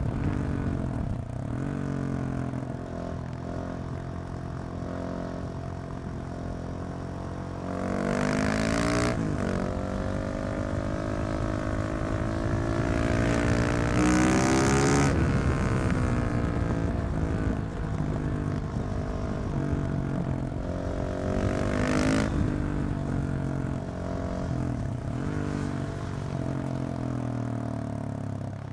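KTM 690 SMC R single-cylinder engine through a decatted Leovince exhaust, ridden hard: the engine revs up in strong surges about 8, 14 and 22 seconds in, with the pitch falling back between them as the bike slows.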